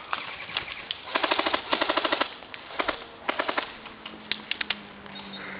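Airsoft guns firing in rapid full-auto bursts of sharp clicks, three main bursts with scattered single shots between them.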